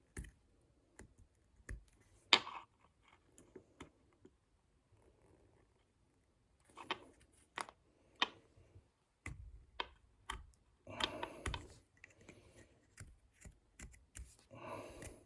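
Irregular light clicks, taps and scrapes of small objects being handled and set down at a workbench, with one sharper click a couple of seconds in and a busier patch of scraping and rustling past the middle.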